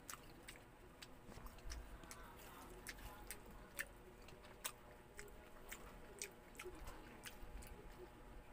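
A person eating cooked crab by hand, close to the microphone: scattered sharp clicks and smacks from shell being picked apart and from the mouth sucking and chewing the meat.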